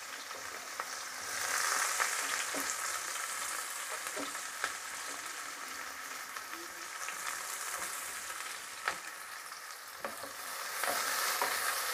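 Sliced red onions sizzling steadily in hot oil in a kadai, being fried until lightly browned, with a few light clicks of a wooden spatula against the pan.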